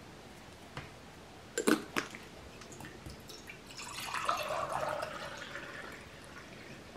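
A couple of sharp knocks, then water poured from a clear pitcher into an enamel mug for about two seconds.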